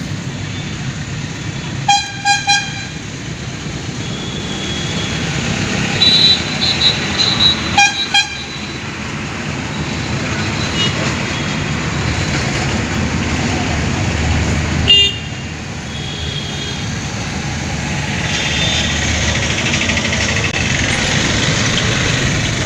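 Steady road traffic with vehicle horns honking: three short toots about two seconds in, a run of higher toots between six and eight seconds, and one more short honk near the middle.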